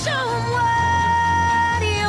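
Pop song recording: a female lead vocal slides down, then holds one long high note over a backing track with a steady bass.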